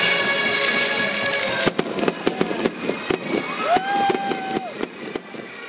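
Music plays at first, then about two seconds in fireworks begin crackling with many rapid sharp pops. A rising whistle holds for about a second midway through.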